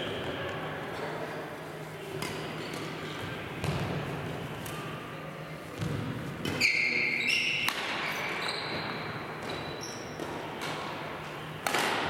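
Badminton play in a reverberant sports hall: sharp racket strikes on the shuttlecock and footsteps on the wooden court, with short high shoe squeaks about halfway through and a loud strike near the end.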